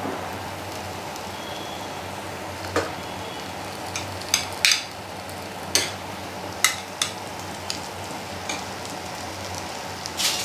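Steel spoon scraping and clinking against a steel kadai while thick atta halwa made with ghee is gathered off the sides of the pan. There are scattered short strokes over a steady low hiss, with a louder knock near the end.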